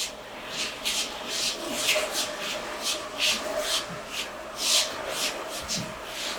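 Cardboard scraping across the floor under a heavy piece of furniture being pushed in short shoves, a run of irregular scrapes about two a second.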